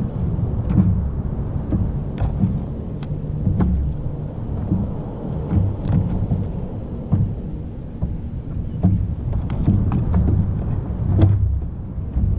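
Low rumble of wind on the microphone and water lapping against a small wooden boat's hull, with scattered sharp clicks every second or so.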